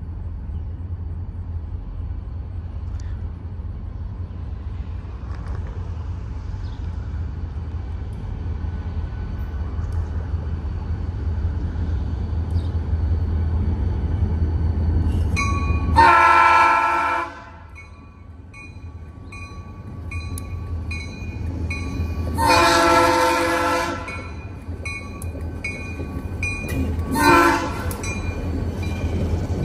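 EMD diesel locomotives' engines rumbling low and steady as the lashup approaches, then the lead locomotive's multi-chime air horn sounds two long blasts and a short one, with a further long blast starting at the very end: the long-long-short-long grade crossing signal.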